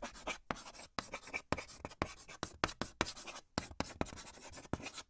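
Chalk scratching on a blackboard as words are written out: a quick run of short scratchy strokes, several a second, with brief pauses between them.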